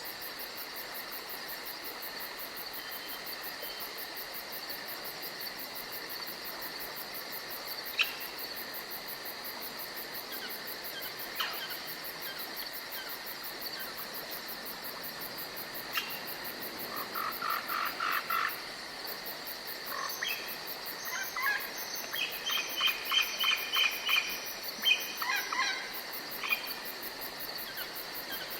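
Forest ambience: a steady high insect drone throughout, with an animal calling in bursts of quick repeated notes in the second half and a few single sharp chirps before that.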